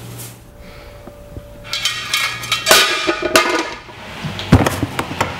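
Metal cookware clattering and clanking on a stovetop, a pan, its lid and a spoon knocking together with a ringing tone, then a heavy thud a few seconds in.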